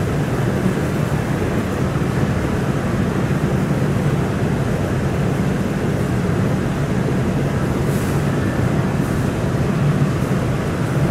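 Steady drone of an Airbus A330-300 cabin in flight: engine and airflow noise, even and unchanging, heaviest in the low rumble.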